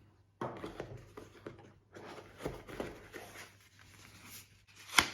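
Product box and packaging being opened and handled by hand: scattered rustles and light taps, with one sharp click near the end.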